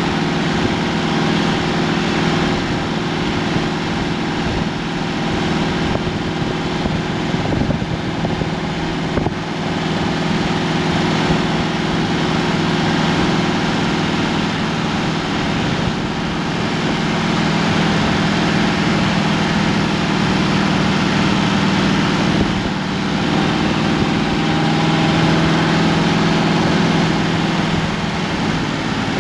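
1937 Ford's 59AB flathead V8 running through straight pipes, heard from inside the cab as the car cruises at a steady speed, its note dipping and rising slightly.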